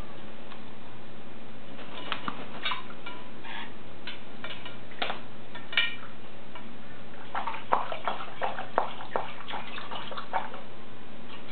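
African grey parrot bathing in a shallow ceramic bowl of water, splashing and clinking against the bowl. The sounds come as scattered clicks and splashes from about two seconds in, then a busier flurry of splashing as it flutters in the water about seven seconds in, all over a steady hiss.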